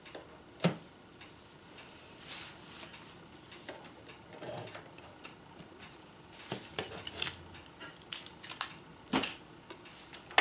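Crinkly lightweight ripstop nylon rustling as it is smoothed and positioned under a sewing machine's presser foot, with small sharp clicks scattered through: the loudest about half a second in, a run of them later on, and another near the end.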